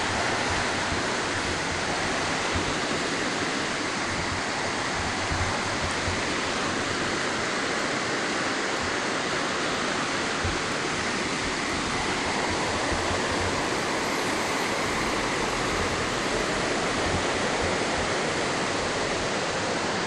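Fast-flowing muddy river cascading over rocks: a steady, unbroken rush of water.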